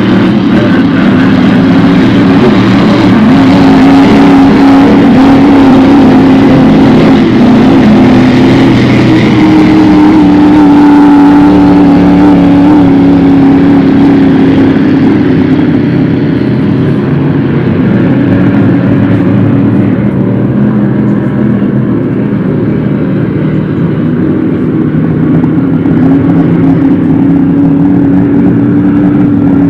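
Grand Prix hydroplane engines running flat out in a race: a loud, continuous engine drone with a slight rise in pitch about ten seconds in.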